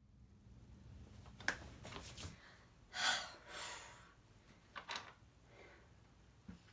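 Small clicks from markers being handled and uncapped on a wooden desk, with a quick audible breath about three seconds in.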